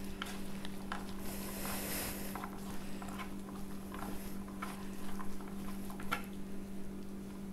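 Gloved hands kneading and mixing mashed green plantain with grated cheese on a wooden board: soft squishing and rubbing with light scattered taps, over a steady low hum.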